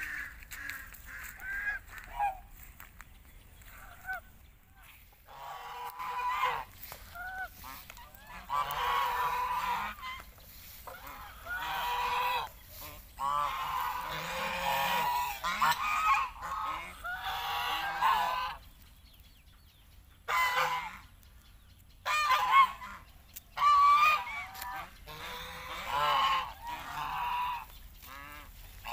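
A flock of domestic geese honking, many calls overlapping in bouts, with only scattered single honks for the first few seconds and a short lull a little past the middle.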